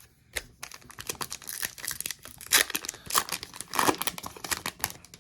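Foil wrapper of a Pokémon Sword and Shield booster pack crinkling and tearing as the pack is opened by hand, an irregular run of crackles that is loudest in the middle.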